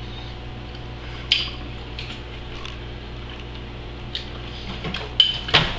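A metal utensil clinking and scraping against a ceramic bowl a few times as food is scooped up and eaten, with a louder knock near the end, over a steady low hum.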